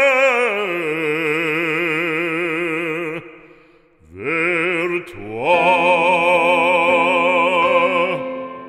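Background music: an operatic voice singing a French hymn-like song. It holds a long note with heavy vibrato that fades about three seconds in, then slides up into a second long held note that ends shortly before the close.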